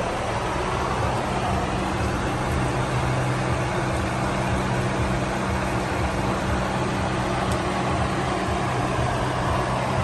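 Steady low mechanical drone with a constant hiss over it, unchanging throughout.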